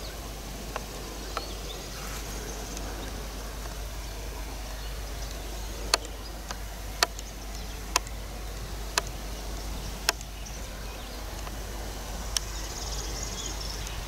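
Summer meadow ambience with insects buzzing and chirping. Through the middle, a string of sharp clicks comes about once a second and stands out as the loudest sound.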